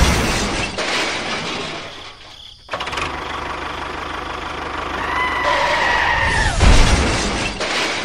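Crash sound effects for toy vehicles: a loud crash at the start, then an engine running, a screeching tone that slides down, and a second loud crash about seven seconds in as the toy tractor tips over.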